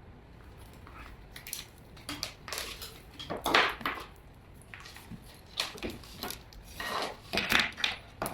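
Handling noise from an armored cable drum and its connectors being moved about: irregular clicks, knocks and rattles of hard parts, several in quick clusters.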